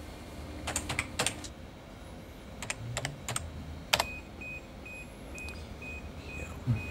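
Computer keyboard keys clicking as a password is typed, in two short runs of keystrokes. From about four seconds in, a faint high beep repeats about twice a second.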